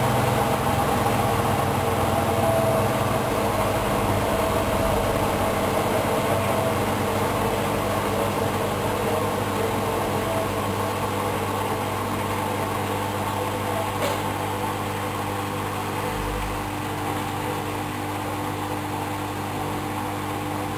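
Hoover Dynamic Wash 10124 washing machine in its final spin cycle, running with a steady motor and drum hum that gradually gets quieter. There is a single sharp click about two-thirds of the way through.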